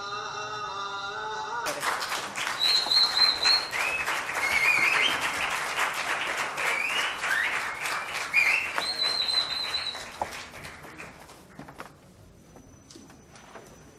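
Theatre audience applauding, with whistles on top. The applause starts suddenly about two seconds in, stays strong for about eight seconds, then dies away.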